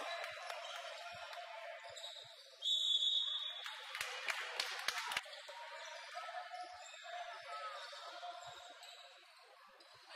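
Basketball game sounds on a hardwood court: a ball bouncing and shoes squeaking, with a loud high squeak about two and a half seconds in, over steady hall noise.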